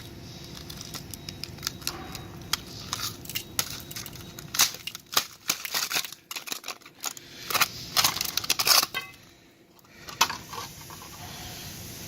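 Irregular crackling and crunching from something being handled, in dense clusters, with a brief quiet about nine and a half seconds in, over a low steady background hum.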